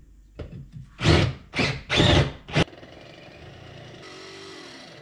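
Cordless drill with a step bit boring a large hole through steel, run in about four short, loud bursts in the first half. A much quieter steady sound carries on after them.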